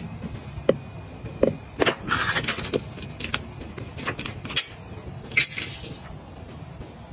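Household items being handled and set down: a string of light clicks and knocks, with two short rustling or scraping noises, one about two seconds in and one about five and a half seconds in.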